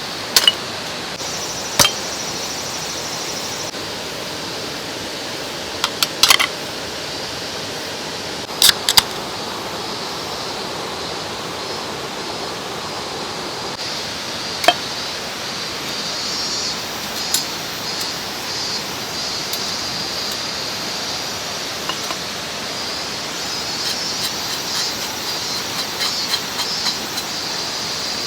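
Steady rush of a mountain stream, with a few scattered sharp knocks and clicks over it.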